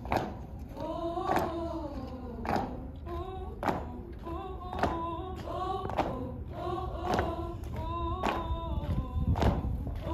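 A line of women singing a chant in unison, with a sharp stomp on each beat about once every second and a bit.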